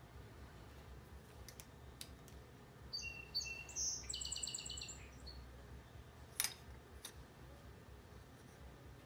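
A songbird chirps and trills for about two seconds in the middle. Around it come a few light clicks, the sharpest about a second after the song ends, as the hand plane's blade depth is adjusted by hand.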